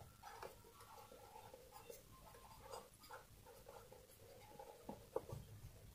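Faint scratching of a pen writing on lined notebook paper, with a couple of slightly sharper taps near the end.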